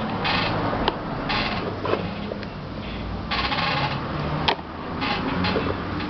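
Plastic scraping and clicking as the tight rear cover of a Britânia electric fan's motor housing is worked loose by hand: a few short rasping scrapes and several sharp clicks.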